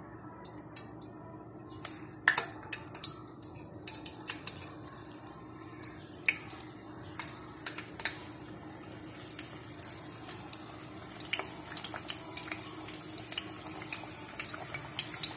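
Keema samosas deep-frying in hot oil in a steel pan as they are added one by one: a steady sizzle with many sharp pops and crackles, over a faint steady hum.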